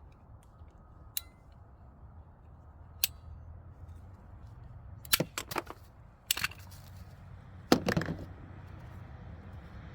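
PVC water pipe being cut: scattered sharp clicks and snaps, with a cluster about five seconds in and the loudest crack near eight seconds, as the cut goes through the pipe.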